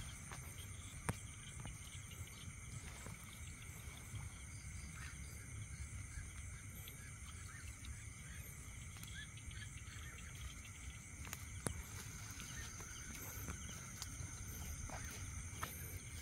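Night-time insect chorus: steady high trilling of crickets or similar insects, over a low handling rumble, with two sharp clicks, one about a second in and one around two-thirds of the way through.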